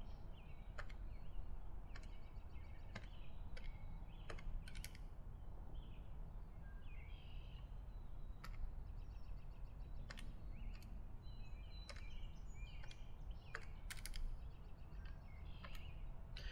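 Casio fx-83GT PLUS scientific calculator's keys being pressed one by one as a formula is entered, giving faint, irregular clicks.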